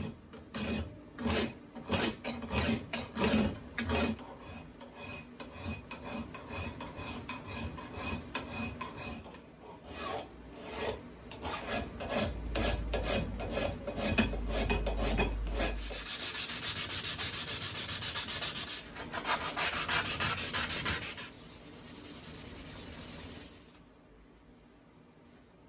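Hand file working the steel head of a Plumb Jersey axe, a run of repeated rasping strokes, about two a second at first and then closer together. Later comes a steady hiss lasting several seconds before the sound fades.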